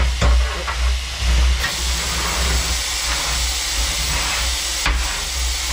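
Steady hiss of steam from an 18-ton vertical-boilered shunting locomotive in steam, growing louder about a second and a half in, with a couple of sharp knocks from a fire rake working in the ash pan.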